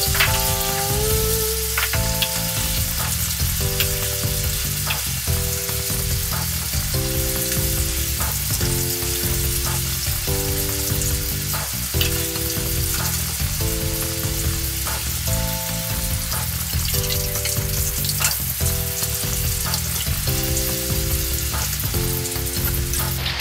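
Tofu deep-frying in a wok of hot oil: a steady, dense sizzle, with an occasional clink of a metal ladle stirring against the wok.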